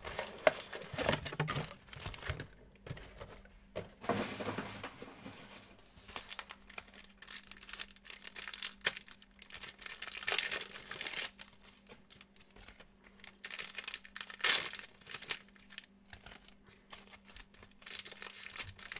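Plastic wrapping on trading-card boxes and packs crinkling and tearing in irregular bursts, over a faint steady hum.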